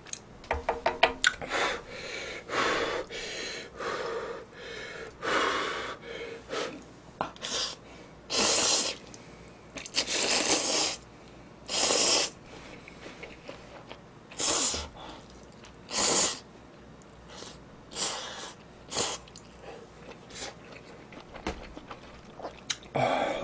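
A person slurping hot instant ramen noodles off chopsticks, about a dozen loud slurps with chewing and small clicks in between.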